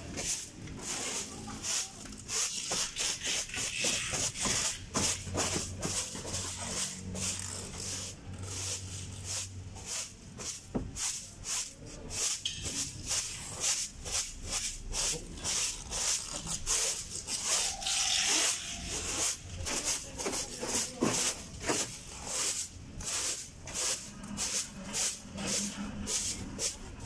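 Broom sweeping the rubber-matted floor of an empty van's cargo area: quick repeated brushing strokes, about two or three a second.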